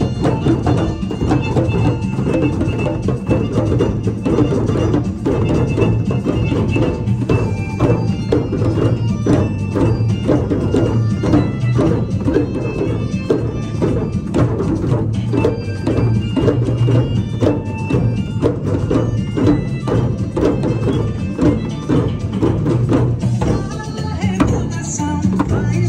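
A group of djembe hand drums played together by hand in a steady, dense rhythm of many overlapping strokes.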